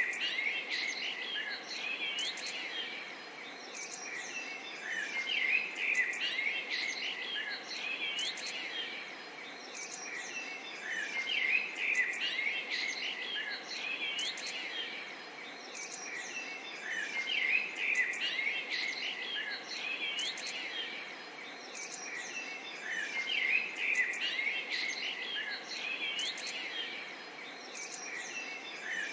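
Several songbirds singing together, a busy mix of short chirps, trills and whistles over a faint steady hiss. The chorus swells and eases about every six seconds, as if a short recording were looped.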